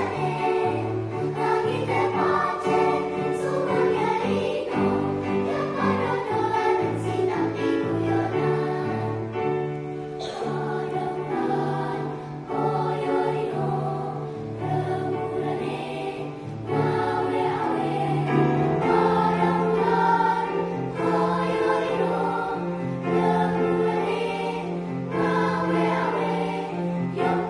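A choir singing in parts, with sustained chords and a long held low note in the lower voices from about two-thirds of the way in.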